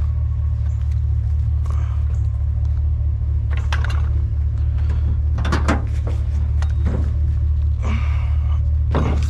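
A steady low engine rumble, with intermittent metallic clanks and rattles as a child's bicycle is carried and set into a pickup truck bed; the biggest clatters come in the second half.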